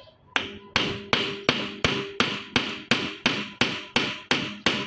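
A small hammer tapping the metal end cover of a Fuso 6M70 truck air dryer housing in a steady rhythm, about thirteen strikes at a little under three a second, each leaving a short metallic ring.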